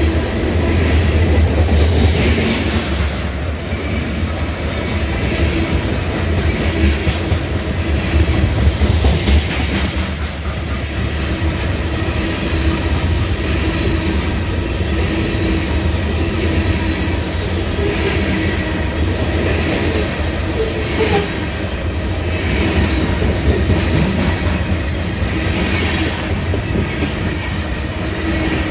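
A train rolling past close by: a steady loud rumble of wheels on rail, with repeated clacks as the wheels cross rail joints.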